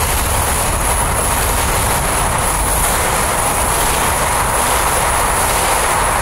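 MRT-3 Dalian light rail train pulling out of the station, its wheels and running gear rolling steadily as it gathers speed past the platform.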